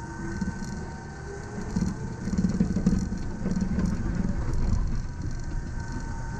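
Yamaman Yukarigaoka Line rubber-tyred people-mover train running on its concrete guideway, heard from the driver's cab: a low rumble with rattling, plus a steady high hum. The rumble grows louder about two seconds in as the train gathers speed.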